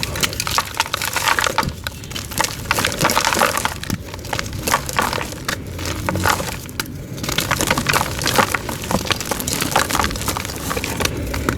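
Blocks of white gym chalk being crushed and crumbling into powder, a dense run of irregular soft crunches and crackles.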